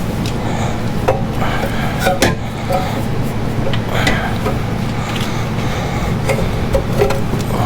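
Scattered knocks and clanks of a metal cat-back exhaust pipe being worked into place under the vehicle, over a steady low hum.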